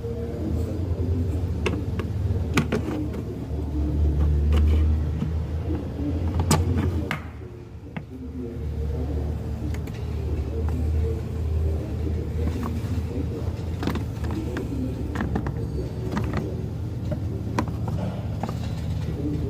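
Truck engine idling with a steady low rumble that dips briefly about eight seconds in, with scattered sharp clicks and knocks over it.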